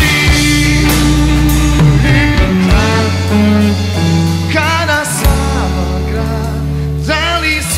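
A four-piece rock band playing live: two electric guitars, bass guitar and drums. Twice in the second half, a high melody line with wavering, bent notes rises over the band.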